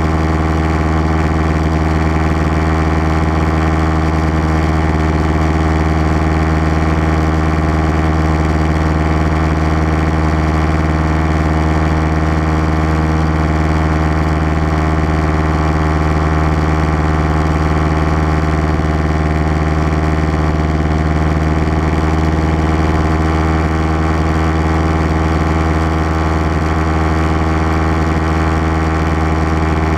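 Piston engine and propeller of a light single-engine plane running steadily in flight, a constant low drone heard from inside the cabin.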